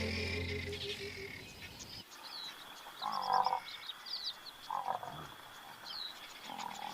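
Documentary music fading out over the first couple of seconds, then frogs croaking in short calls every second or two, over high chirps and a steady thin insect-like whine.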